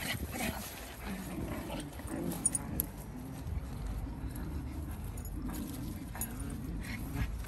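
Miniature schnauzer puppy making low, wavering whiny vocal noises while it plays with a stick.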